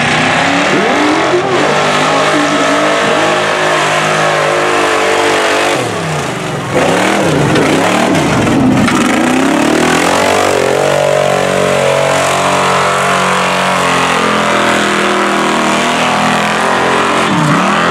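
Lifted mud trucks on tractor tires running hard through a mud pit, engines revving high with the pitch swinging up and down repeatedly. The engine gets louder about seven seconds in.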